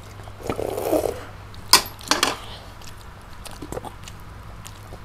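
Children eating crispy fried chicken with rice: a short mouth noise about half a second in, one sharp click a little under two seconds in, then a few softer clicks.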